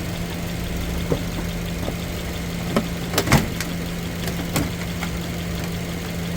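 A steady low hum throughout, with several short clicks and knocks from handling the car battery and its hardware, the loudest about three seconds in.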